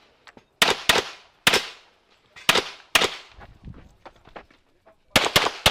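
Rapid pistol fire from a Standard Division competition pistol during a timed practical shooting stage: shots come mostly in quick pairs, about seven to nine in all. There is a pause of about two seconds in the middle before the firing resumes.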